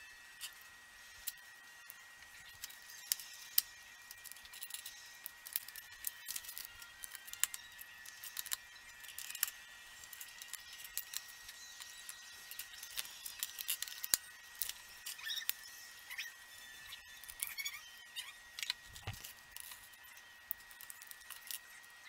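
LEGO plastic bricks clicking and clattering as pieces are handled, sorted and pressed together: many light, irregular clicks, over a faint steady high-pitched hum.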